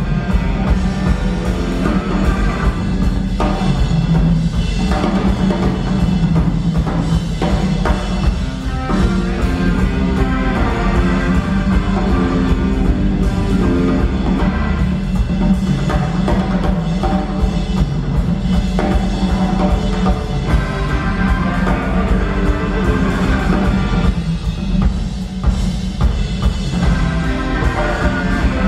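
Live progressive rock band playing an instrumental passage: drum kit, keyboards and guitar over sustained low notes, heard from the audience.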